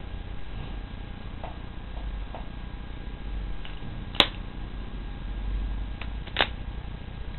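Alfa 4 revolver: a few faint clicks, then two sharp, loud cracks about two seconds apart, the second with a short ringing tail.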